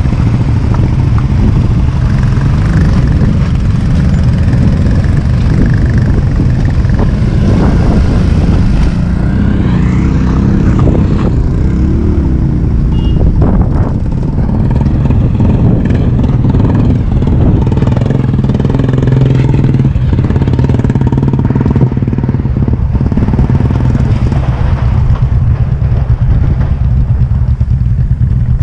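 Royal Enfield Thunderbird's single-cylinder engine running steadily under way, with a few brief changes in pitch near the middle.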